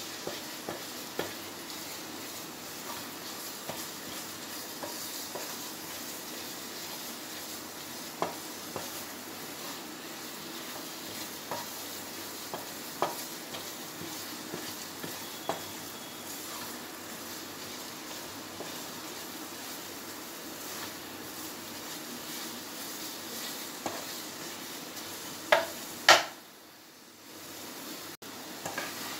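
Wooden spatula stirring and scraping a thick coconut burfi mixture in a kadai over a gas flame, with a steady low sizzle and scattered clicks of the spatula against the pan, two louder near the end. The stirring is kept up without pause so the mixture does not stick to the bottom and burn as it cooks down to a firm consistency.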